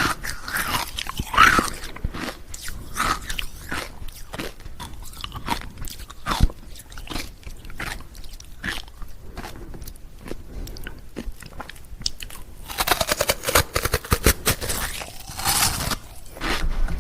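Ice cubes being bitten and chewed: a continuous run of sharp, crisp crunches. The crunching grows denser and louder from about three-quarters of the way through.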